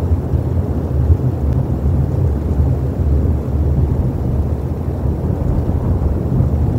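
Wind buffeting an outdoor camera microphone: a loud, steady low rumble that swells and eases slightly.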